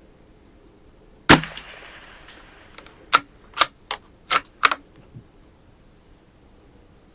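A single shot from a Savage FV .22 LR bolt-action rifle, with a short fading echo, followed about two seconds later by a quick series of about six sharp clicks as the bolt is worked.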